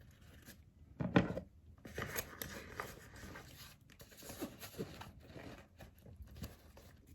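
A phone being slid into a small Louis Vuitton Pochette Félicie handbag: light rustling, scraping and small clicks as the bag is handled, with a sharper knock about a second in.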